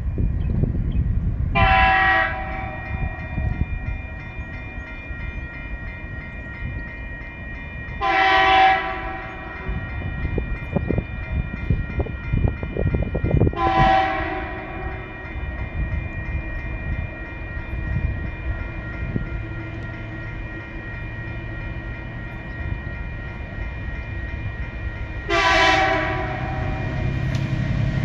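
TasRail TR17 diesel locomotive's horn sounding as it approaches a level crossing: three short blasts several seconds apart, then a longer blast near the end. Under the horn, the locomotive's engine rumble grows louder as the train comes up the hill toward the crossing.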